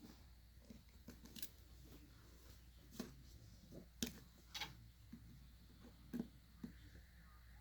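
Faint, scattered light clicks and taps, about half a dozen, from a small screwdriver and phone parts being handled while the phone's tiny screws are put back in.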